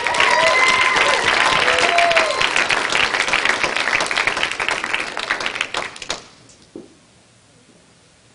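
Audience applauding, with a voice or two calling out in the first couple of seconds; the clapping dies away about six seconds in, leaving a quiet room.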